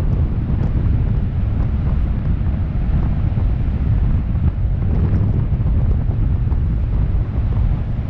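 Heavy wind buffeting on the microphone of a 360 camera mounted outside a car driving through a road tunnel, over a steady low rush of tyre and road noise.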